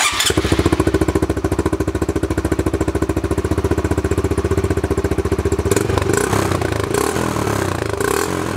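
Honda Trail 125's single-cylinder four-stroke engine running with its spark arrestor removed, giving the open exhaust an aggressive tone with a little rasp. It idles with an even, rapid exhaust pulse, and about six seconds in the beat turns uneven and brighter.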